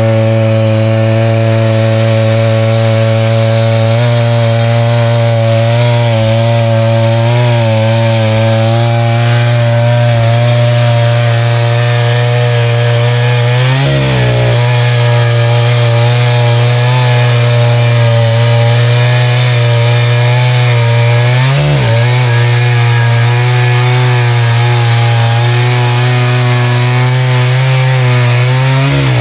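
Echo CS-590 Timberwolf two-stroke chainsaw with a ripping chain, running at full throttle as it rips lengthwise through a cedar log in a chainsaw mill. The engine holds a steady high pitch and dips briefly twice under the load of the cut, about halfway through and again later.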